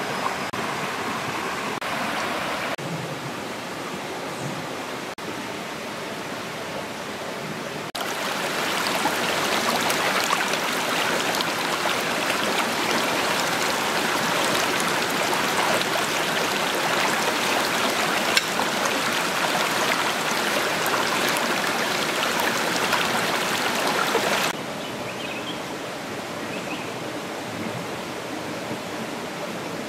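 Running water of a shallow rocky stream: a steady rushing hiss of water over stones. It jumps abruptly louder about eight seconds in and drops back just as suddenly a few seconds before the end.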